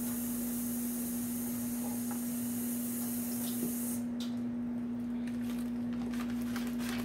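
Kitchen tap water running as peeled garlic cloves are rinsed, shutting off abruptly about four seconds in, then a few light clicks of handling on the counter. A steady low hum runs underneath.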